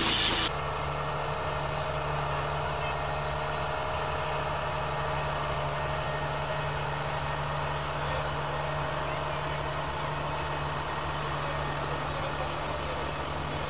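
Tractor engine running steadily at an even pitch while driving a tractor-mounted leek harvester.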